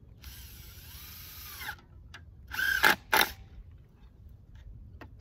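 Power drill driving screws to fix a sign to a wooden post: one run of about a second and a half with the motor pitch wavering, then two short, louder bursts about three seconds in as the screw seats.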